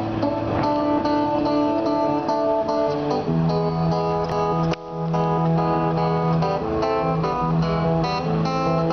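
Acoustic guitar playing an instrumental intro of strummed chords, with a brief break a little past halfway.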